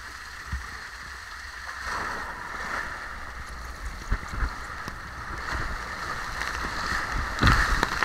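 Rushing water under an inner tube sliding down a wet concrete water slide, getting louder about two seconds in, with a few bumps along the way and a loud splash near the end.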